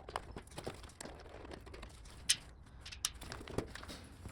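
Scattered light clicks and taps of hands and tools on a motorcycle's plastic body panels and fasteners, with two sharper clicks a little past halfway.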